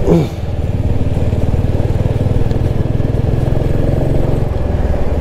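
Royal Enfield motorcycle engine running steadily while riding, a dense, even stream of rapid exhaust pulses.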